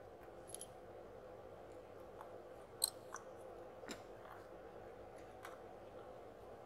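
A few small, sharp clicks of a precision screwdriver on the tiny screws at the bottom edge of an iPhone XR, spread a second or so apart over a faint steady hum.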